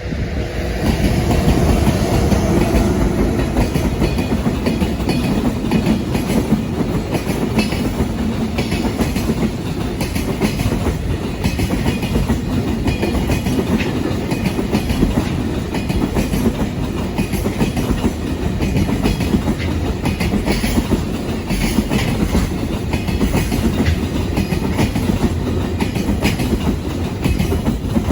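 Train passing close by over a level crossing: a loud, steady rumble with wheels clattering over the rail joints, building up over the first second or two and then holding.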